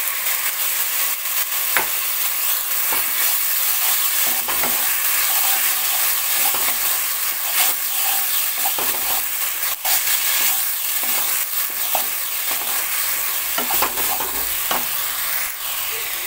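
Tomato paste frying in hot oil with onion and ginger-garlic paste, stirred with a wooden spatula in a coated pan. A steady sizzle runs throughout, with scattered scrapes and clicks from the spatula. This is the masala being fried down after the wet paste went into the hot oil.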